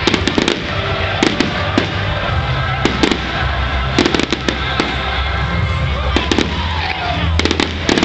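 Fireworks display: aerial shells bursting in quick clusters of sharp bangs and crackles, several clusters every second or so, over a steady low background rumble.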